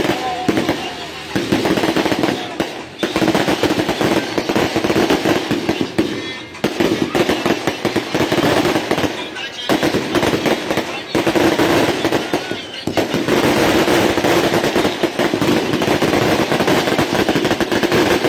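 Firecrackers going off in rapid, near-continuous crackling strings, with a few short lulls, over crowd voices and music.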